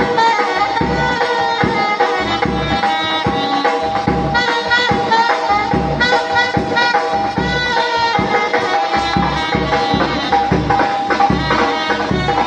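Traditional Manipuri festival music: a sustained, reedy melody over a steady drone, with drum beats about twice a second.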